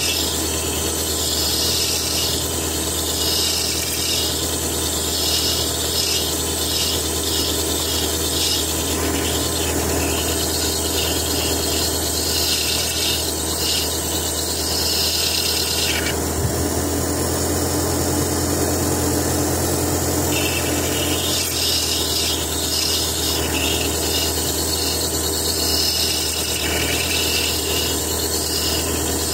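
Faceting machine's lap spinning with a piece of Oregon sunstone held against it, a steady motor hum under a gritty rubbing hiss as the stone is ground. The hiss eases for a few seconds around the middle, then comes back.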